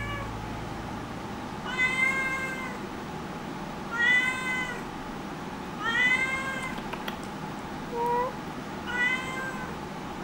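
A young black-and-white domestic cat meowing five times, about every two seconds: four longer meows that rise and fall in pitch, and one short, lower one between them. The owner guesses the meows are a plea for more snacks.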